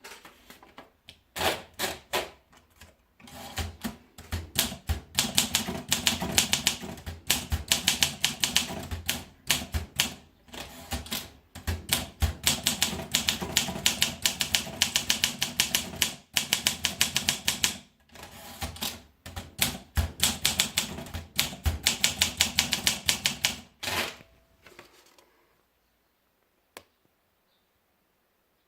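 Olympia SM2 manual portable typewriter being typed on: rapid runs of sharp key strikes with short pauses between them. The typing stops about 24 seconds in, and one lone click follows a few seconds later.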